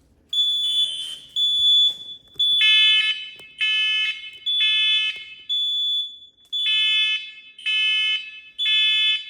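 Fire alarm and two smoke alarms sounding together in repeating beeps, about one a second. A shrill high beep starts first and is joined about two and a half seconds in by a lower, harsher alarm tone beeping in step.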